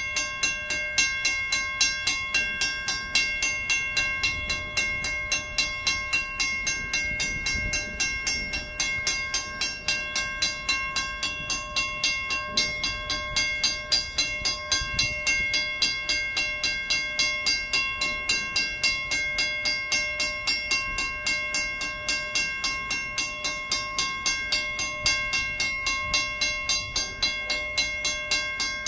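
Mechanical railroad-crossing bell (WCH) ringing steadily, its hammer striking the gong about three times a second, each stroke ringing on the same metallic pitches: the crossing is active while a freight train occupies it.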